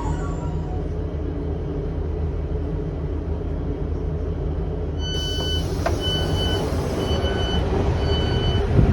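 Class 150 diesel multiple unit's underfloor diesel engine idling with a steady low rumble; about five seconds in, the door-release warning starts, a two-tone beep repeating about once every 0.8 s, with a sharp click just before the second beep, as the doors are released for opening.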